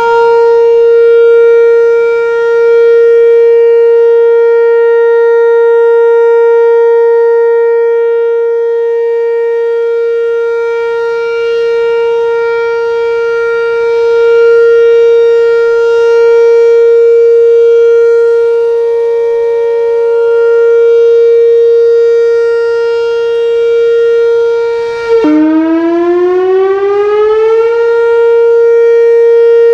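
Whelen WPS-4004 electronic warning siren sounding its steady Alert tone, loud and unwavering in pitch. Near the end the pitch drops suddenly, glides back up over about two seconds, and holds steady again.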